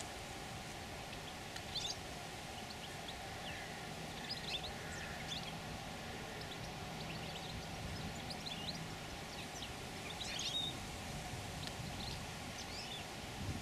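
Small birds chirping now and then over a steady outdoor background hiss and hum; a faint low hum comes in for a few seconds in the middle.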